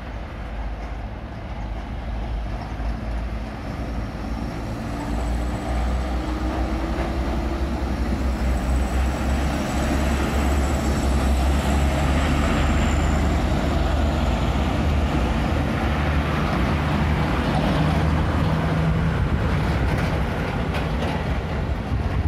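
Diesel engines of trucks loaded with sugarcane running with a deep rumble, growing steadily louder as they draw near and pass, loudest in the second half.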